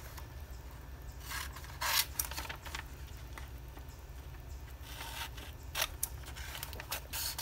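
Glossy magazine pages being turned and handled: a few short, crisp paper rustles and swishes, the loudest about two seconds in.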